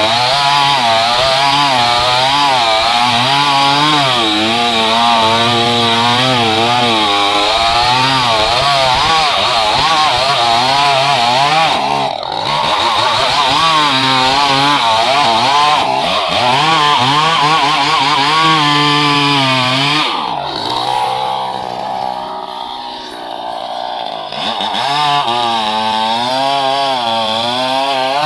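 Chainsaw engine running at high revs under cutting load, its pitch wavering as the chain bites into the wood. It eases off briefly twice, then drops to a lower, quieter run for a few seconds past the middle before revving up again.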